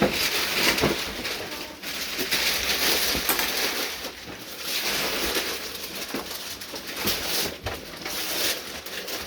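Wrapping paper being torn and crumpled as a present is unwrapped: continuous rustling and ripping, with sharp crackles throughout.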